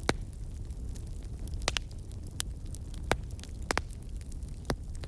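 Campfire crackling: a steady low rumble of burning wood with irregular sharp pops scattered through it, the loudest just after the start.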